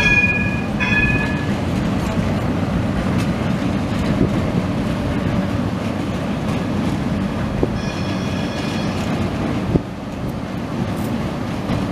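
Porto Metro Eurotram light-rail train running across a bridge with a steady low rumble. Two short high tones sound within the first second and a half, and a fainter high squeal comes at about 8 to 9 seconds.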